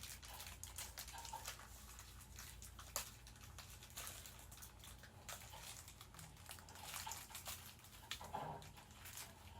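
Faint clicking and rustling of shoe-rack parts being handled as the feet are fitted, with one sharper click about three seconds in.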